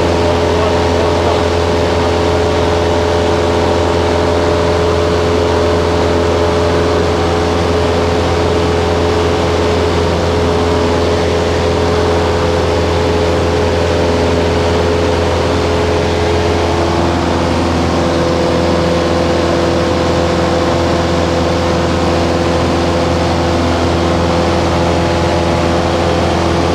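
Piper Super Cub's piston engine and propeller droning steadily in flight, heard from inside the cockpit. The pitch shifts slightly about two-thirds of the way through.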